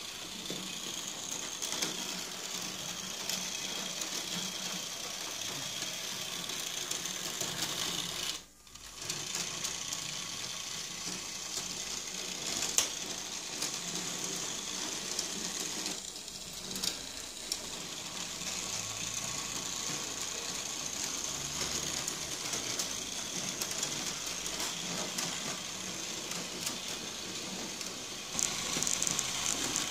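Motor and gearing of an H0-scale Edison model streetcar running on its track: a steady mechanical whirring with occasional sharp clicks. The sound drops out briefly about eight seconds in.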